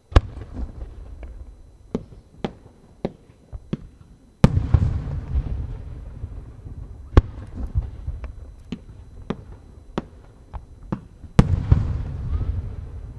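Japanese aerial firework shells bursting overhead. There is a sharp report at the very start, heavy booms with long rumbling echoes about four and a half and eleven and a half seconds in, another sharp crack near seven seconds, and many smaller pops and crackles between.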